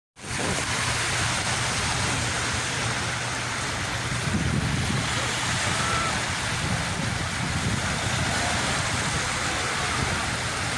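Sea waves washing on the shore as a steady rushing noise, swelling lower and stronger about four seconds in.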